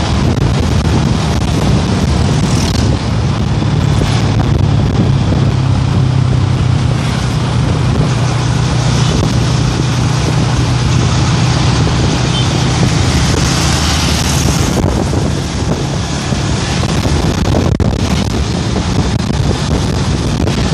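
Wind rushing over the microphone on a moving motorcycle, with a small motorcycle engine running at a steady cruise underneath.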